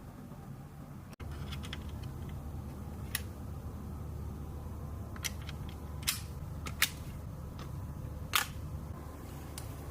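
Single keystrokes on an RK S98 mechanical keyboard: sharp, separate clicks at irregular intervals, a few much louder than the rest, over a steady low hum.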